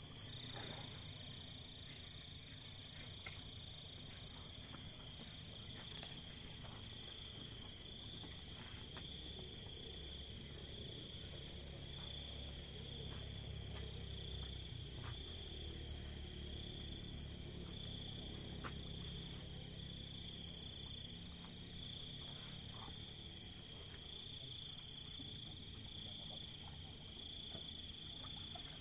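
Night chorus of crickets: a steady high-pitched trill that swells and fades slightly in a slow pulse, over a faint low rumble.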